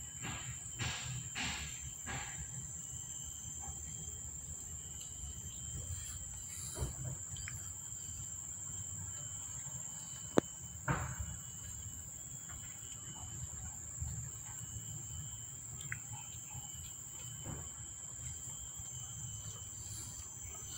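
Insects buzzing in one steady, high-pitched tone, over a faint low hum. There are a few soft knocks and one sharp click about ten seconds in.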